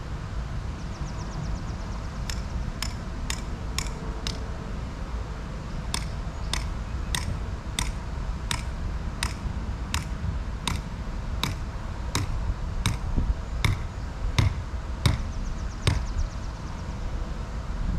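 Hammer driving a ground stake to anchor an inflatable water slide: a short run of about five quick strikes, a pause, then about fifteen steady strikes a little under a second apart, the last ones loudest.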